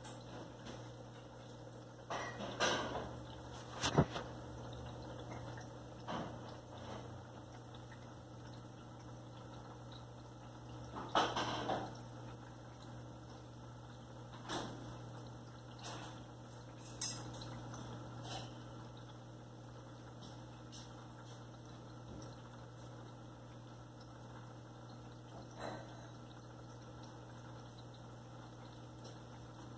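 Steady low hum of aquarium equipment, with a few short clicks and splashy bursts scattered through, the loudest about eleven seconds in.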